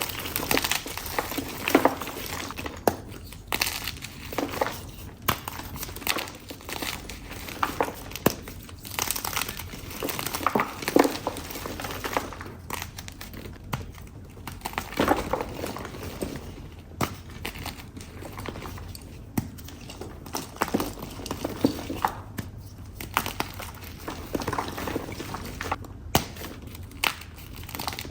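Blocks of dyed chalk being crushed and crumbled, a run of irregular crunches and sharp crackles with powdery crumbling between them.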